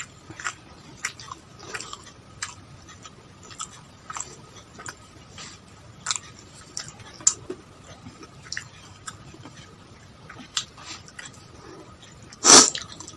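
A person chewing food close to the microphone, with scattered small wet clicks and crunches, and one loud short burst near the end.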